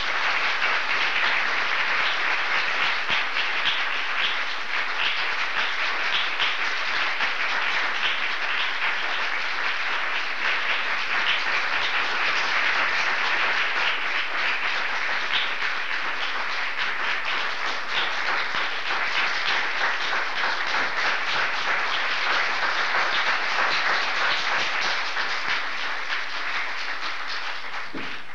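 Audience applauding steadily, a dense mass of many hands clapping, cutting off abruptly at the end.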